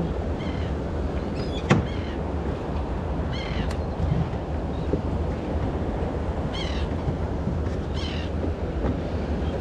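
Steady wind and sea noise, with a sharp knock about two seconds in and short high bird calls several times.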